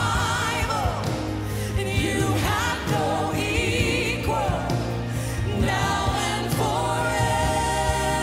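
Live gospel worship music: a band plays while a woman leads the singing, holding wavering high notes about halfway through, with the congregation singing along.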